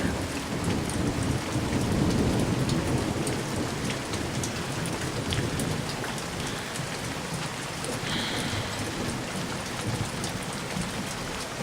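Steady rain falling, drops ticking on a surface, with a low rumble of thunder that swells about two seconds in and slowly fades.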